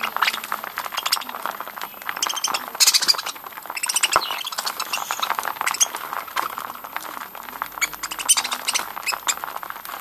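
A flock of budgerigars chattering and chirping while they feed from a seed dish, mixed with fast irregular clicking of beaks on seed and dish.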